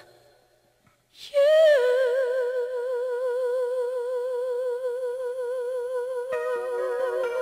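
After about a second of silence, a single voice holds one long sung note with a steady, even vibrato, unaccompanied at first. Near the end, soft accompanying chords come in under the held note.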